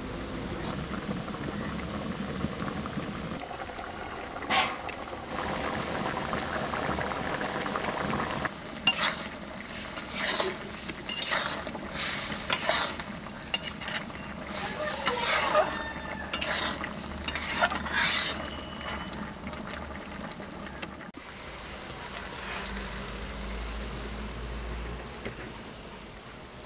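A curry simmering and sizzling in a steel kadai over a fire, with a metal spatula stirring it and scraping repeatedly against the pan's sides in the middle stretch.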